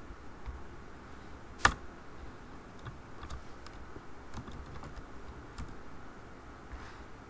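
Typing on a computer keyboard: scattered light key clicks, with one much louder click a bit under two seconds in.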